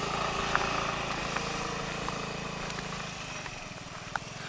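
Small motor scooter's engine running as it rides away, its steady hum slowly fading.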